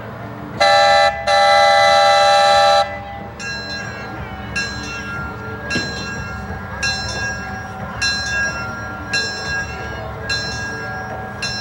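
Locomotive No. 19 'Tracy Lynn' (a small 0-4-0) sounds its chime whistle, a short blast and then a longer one. Its bell then starts ringing steadily, about once a second, over the low running of the engine.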